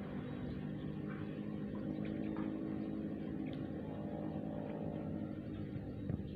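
A motor running steadily at an even pitch, a constant droning hum.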